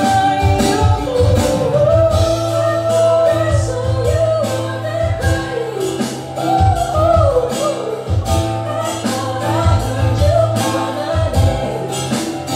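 Live acoustic band playing: a woman sings a melody into a microphone over strummed acoustic guitar and a steady beat, amplified through the venue's speakers.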